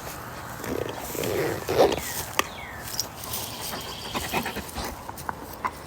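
Dog growling, a rough growl rising to its loudest just before two seconds in, followed by scattered clicks and short high sounds.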